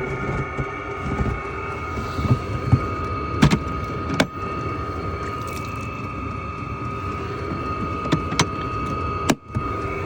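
Chinese diesel air heater running, a steady fan whine over a low combustion rumble. A few sharp clicks come through, two of them around the middle and two near the end.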